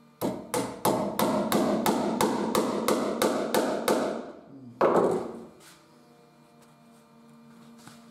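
Small hammer tapping on the iron mechanism of an old box door lock: a quick, even run of about a dozen ringing metal blows, about three a second, then a pause and one heavier knock.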